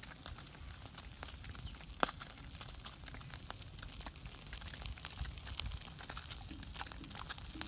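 Small wood fire crackling, with scattered clicks and pops and one sharp pop about two seconds in, over a low rumble.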